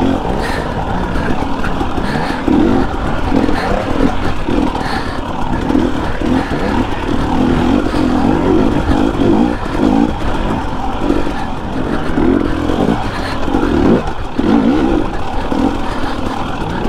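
Dirt bike engine heard close up from the rider, revving up and down unevenly with the throttle while riding over rock and sand.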